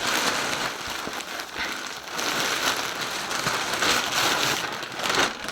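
Plastic clothing packaging rustling and crinkling in irregular swells as it is handled and opened.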